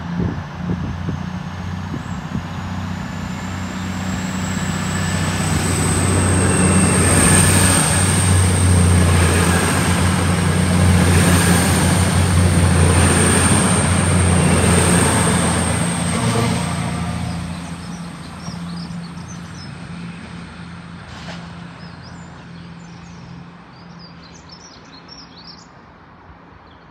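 Diesel multiple-unit passenger train running through the station: a steady low engine note with a faint high whine, swelling to its loudest midway with a few evenly spaced wheel knocks, then fading away. Faint birdsong near the end.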